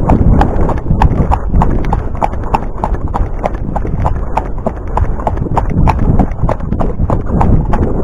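Grey Irish Sport Horse's hooves striking a dirt track in a steady clip-clop, about three to four hoof beats a second, over a constant low rumble.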